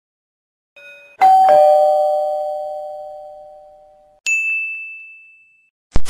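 Doorbell chime sound effect: a two-note descending ding-dong, a higher note then a lower one, ringing out and fading over about three seconds. It is followed by a single high bright ding that fades within about a second.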